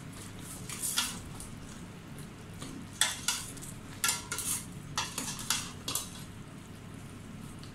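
Metal utensil scraping and clinking against a stainless steel pot while rice noodles are stirred in with chicken and vegetables. It starts with one clank at about a second in, and a run of sharper clanks comes from about three seconds in.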